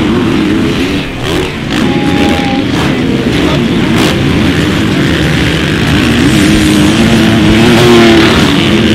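Motocross dirt bike engines revving hard under racing throttle, the pitch climbing and dropping repeatedly and growing louder toward the end.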